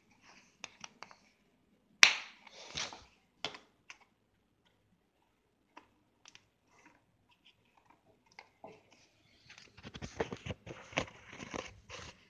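Handling noises in a kitchen: a sharp knock about two seconds in, scattered light clicks, then a quick run of rattling clicks near the end as a small spice jar is handled on the tiled counter.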